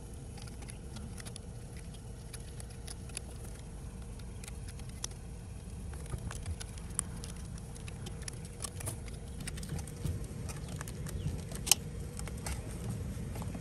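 Small scattered clicks and taps of needle-nose pliers working the wire terminals on a pool pump motor's terminal board as its wiring is disconnected, coming more often in the second half with one sharper click near the end. Underneath runs a steady low rumble.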